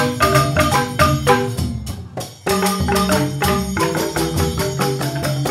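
Balinese joged bumbung gamelan of bamboo xylophones playing a fast run of rapid struck notes over a bass line. It breaks off briefly about two seconds in, then the full ensemble comes back in.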